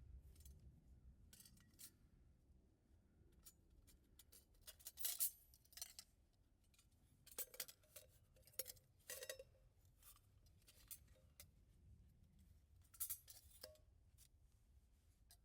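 Scattered small clicks and clinks of cooking gear being handled, a handful of them sharper than the rest, over a faint low background.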